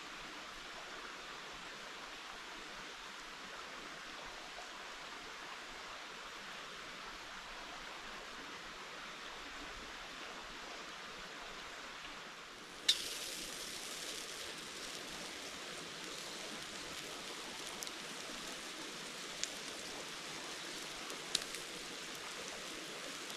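Steady rushing outdoor noise. About thirteen seconds in, a sharp click comes as it changes to a brighter hiss, followed by a few scattered sharp ticks.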